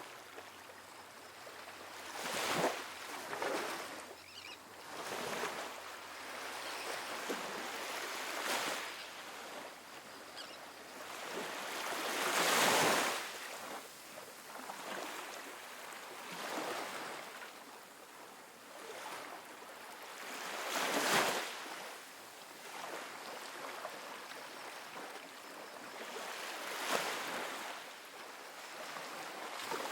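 Small ocean waves breaking and washing up a sandy beach, a soft hiss of surf that swells every few seconds, with the biggest wash about twelve seconds in.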